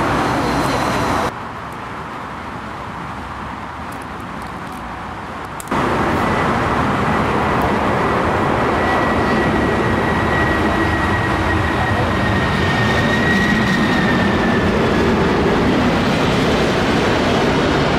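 After a few seconds of quieter airport background, a loud jet rumble cuts in abruptly: a McDonnell Douglas MD-11 trijet freighter on final approach, its engines running in a steady rush with a high whine that drops a little in pitch near the end as it passes.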